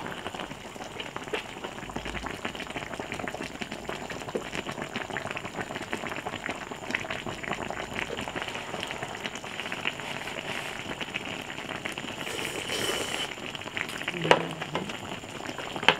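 A wide shallow pan of malatang broth bubbling on the heat, a steady fine crackle of bubbles, with a single short knock near the end.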